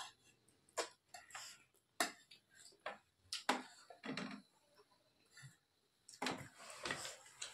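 Metal spoon clicking and scraping against a dinner plate in scattered, irregular strokes, with a denser run of scrapes near the end.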